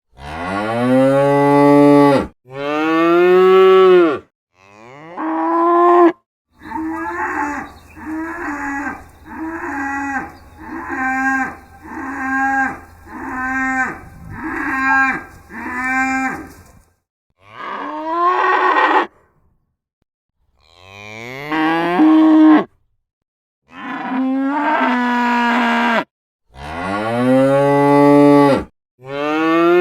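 Cattle mooing: a series of separate moo recordings cut together, mostly long drawn-out moos that stop abruptly at the cuts. In the middle comes a run of about ten short moos, roughly one a second, over a faint steady hum.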